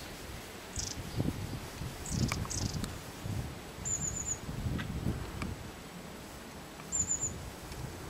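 Long-tailed tit calling: a few thin, very high call notes, then twice a quick run of four very high notes about three seconds apart, over a low rumble.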